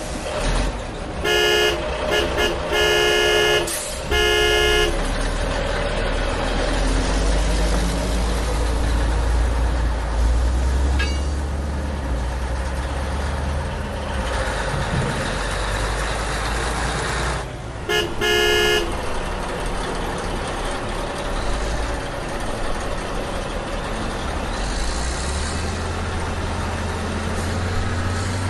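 Truck engine running with a steady low rumble that steps up slightly in pitch near the end. A horn honks in a run of about four short blasts in the first few seconds, and twice more about two-thirds of the way through.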